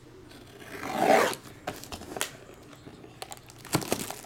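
Utility knife slitting the cellophane shrink wrap on a cardboard trading-card box, a short ripping sound about a second in, then the plastic film crackling and tearing in short bursts as it is peeled off.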